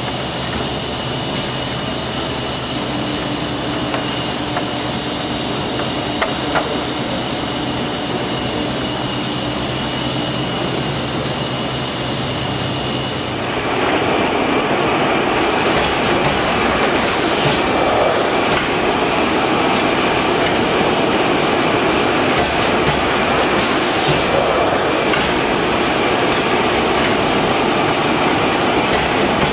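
NAVONA automatic shopper bag making machine running: a steady mechanical hum with a faint high whine, turning louder and busier about halfway through.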